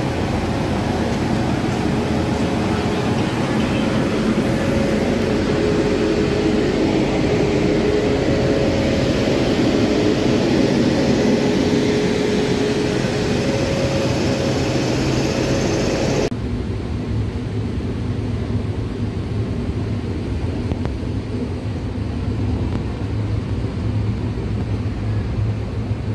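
WAP-7 electric locomotive beside the platform: a steady whir with two faint held whining tones. About sixteen seconds in the sound cuts abruptly to a duller, steady low rumble and hum inside a passenger coach of a running train.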